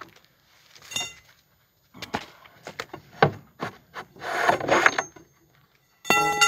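Three-quarter-inch metal conduit legs scraping as they slide up out of holes drilled in a wooden box top, with knocks as they are set down. There is a short ringing clink about a second in, and a louder ringing clang near the end as one pipe strikes the others.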